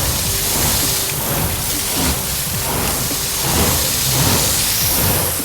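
Loud, steady hissing noise, like a spray or steam sound effect, that starts just before and cuts off suddenly just after, with quiet background music underneath.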